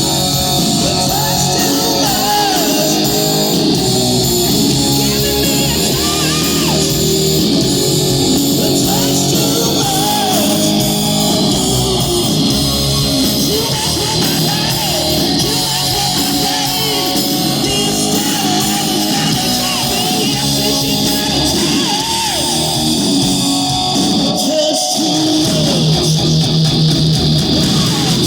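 Live rock band playing, with a singer over electric guitar.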